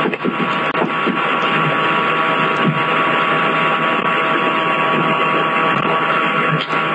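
Loud, steady distorted noise on a webcam microphone, with a few faint held tones running through it.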